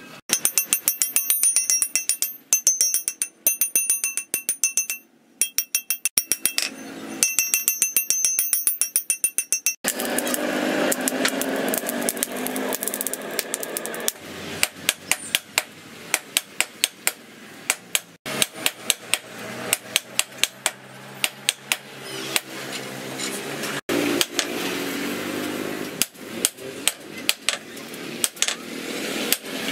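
Hammer blows on steel at an anvil in quick runs, ringing sharply through the first ten seconds. From about ten seconds in, a steady rushing noise comes in, and runs of hammer blows go on over it.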